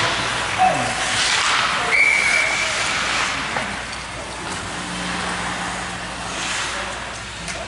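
Ice hockey skate blades scraping and carving on rink ice, a steady hiss that eases off over the last few seconds, with a brief high steady tone about two seconds in.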